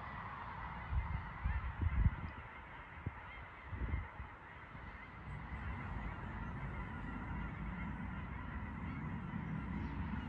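Faint honking bird calls over a steady outdoor hiss, with a few low thuds about one to two seconds in and again around four seconds.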